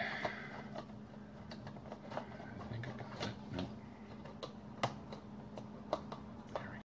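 Light handling of a cardstock papercraft roof on a desk: scattered small taps, clicks and paper rustles over a faint steady hum, with the sound cutting out briefly just before the end.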